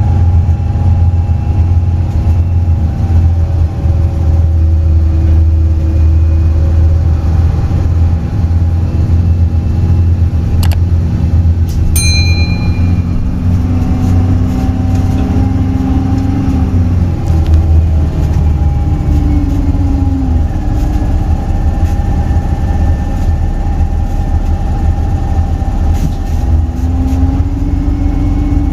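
Coach bus engine and running noise heard from inside the passenger cabin: a steady low rumble, with engine tones that rise and fall several times as the bus speeds up and slows. A short click with a brief ringing tone about twelve seconds in.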